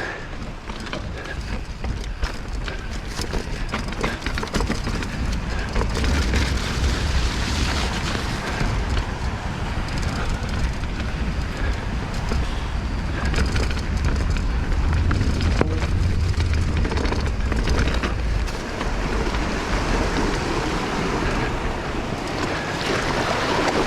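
Steady wind rumble on the microphone with the rush and rattle of a bike rolling fast over a rough trail, louder from about four seconds in.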